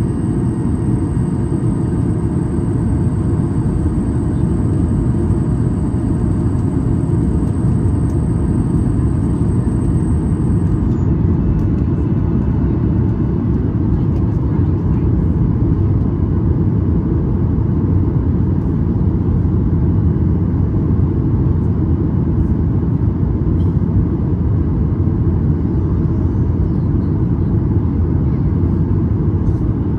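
Steady cabin roar inside a Boeing 737 MAX 8 in flight: airflow and the CFM LEAP-1B engines heard from a window seat, a deep, even rumble. A faint high whine above it stops about eleven seconds in with a slight downward slide.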